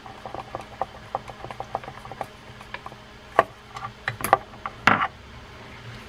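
Screwdriver driving a crossbar screw into the side plate of a Penn Peer 209 fishing reel: a run of light metal clicks, about three a second. About three and a half seconds in, a few sharper metal knocks follow as the crossbars and plate are handled.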